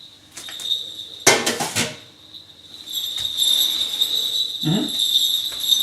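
A quick rattle of metal clanks, a roasting tin knocking against an oven shelf as the turkey is handled. A steady high-pitched whine carries on underneath and grows louder from about three seconds in.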